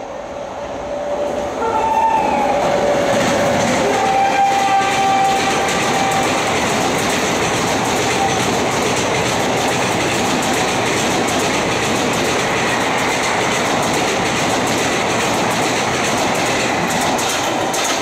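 An express train hauled by a WAP-7 electric locomotive runs through a station at speed, its horn sounding in the first few seconds. The coaches then pass with a loud, steady rumbling rush and a rapid clickety-clack of wheels over the rail joints.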